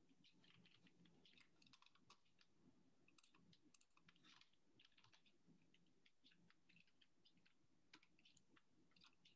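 Near silence with faint, irregular clicks and taps of a stylus on a tablet screen as handwriting is written, over a faint low hum.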